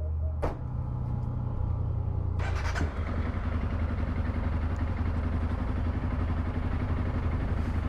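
A small engine running steadily, joined about two and a half seconds in by a loud hissing rush that carries on.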